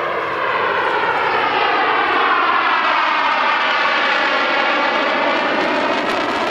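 BAE Hawk jet trainer's single Adour turbofan engine running loudly as the jet makes a low pass with its gear down. The sound swells to its loudest about two to three seconds in, with a sweeping, phasing tone as the jet goes by, then eases slightly as it banks away.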